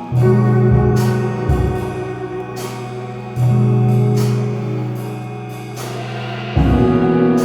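Background music: sustained chords changing every few seconds over a steady beat of low drum hits and cymbal strokes.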